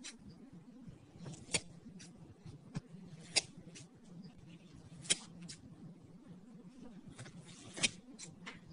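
Scissors cutting through bead-filled slime: four loud, sharp snips spaced a second and a half to two and a half seconds apart, with softer crunchy clicks between them, over a faint low hum.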